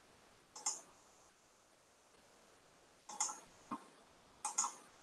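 Faint, short clicks, some in quick pairs: one about half a second in, then three more close together over the last two seconds.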